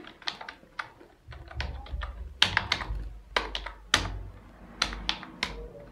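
Computer keyboard typing: an uneven run of keystrokes, roughly three a second, as an email address is entered.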